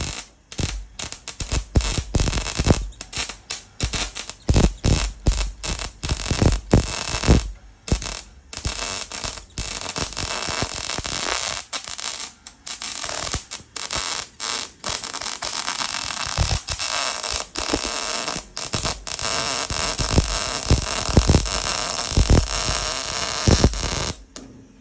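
Welding arc crackling on a sheet-steel body panel. For the first half it comes in short stop-start bursts like tack welds, then runs in longer, steadier stretches from about halfway, stopping just before the end.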